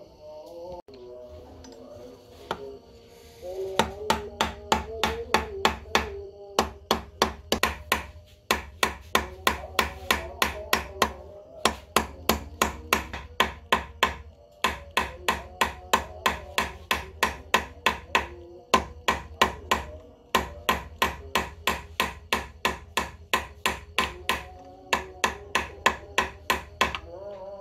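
Small hammer tapping a steel punch held against a metal ring on a wooden block: rapid, even strikes about three a second, in runs with short pauses, starting a few seconds in.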